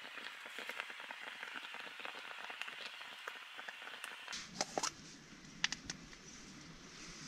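Self-heating meal pouch fizzing and crackling faintly as its water-activated heater pack reacts. About four seconds in this gives way to quiet tent room tone with a few light clicks from a small item being handled.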